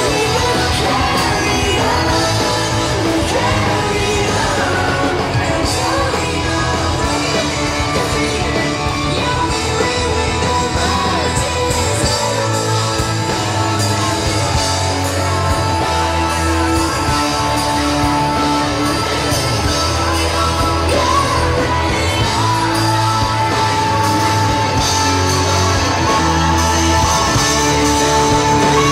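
Live rock band with electric guitars, keyboard and drums playing loudly through a PA, with singing.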